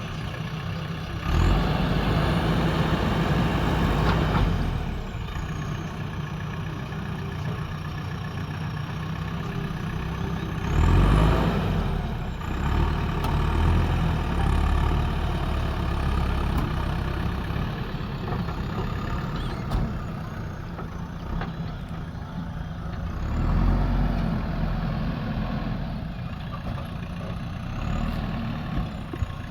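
JCB backhoe loader's diesel engine running steadily while it works, rising in load for a few seconds at a time: about 1.5 s in, about 11 s in and again near 24 s.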